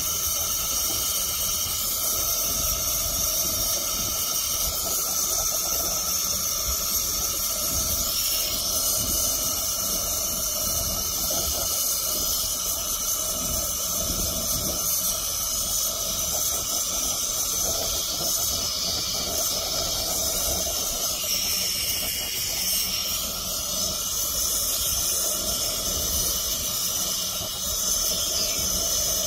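Steady hiss and sizzle of soldering: a hot soldering copper melting solder and flux along a flat-lock seam of lead-coated copper panels.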